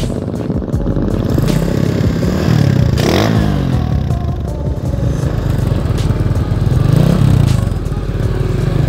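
Motorcycle engines running on the move, their pitch rising and falling twice, about three seconds in and again near seven seconds.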